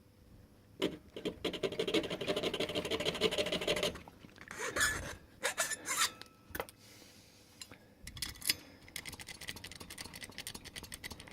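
Hand file rasping across a silver MS2 key blank in quick short strokes for about three seconds, taking down the impression mark at pin position one. Irregular scrapes and clicks follow, then lighter, faster filing strokes near the end.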